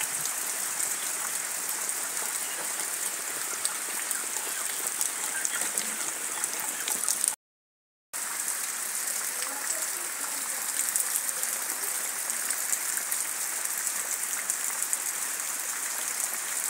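Heavy rain falling steadily: a dense hiss with many small, sharp drop strikes. The sound cuts out for under a second about seven seconds in.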